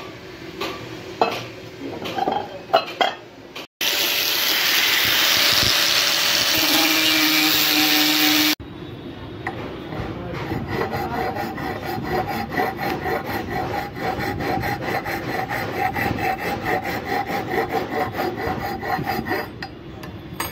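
Metal being worked on a lathe, in three edited stretches. First a few knocks and clatters, then about five seconds of loud, steady hiss. The rest is a long run of rapid, rhythmic scraping of metal with a steady ringing tone.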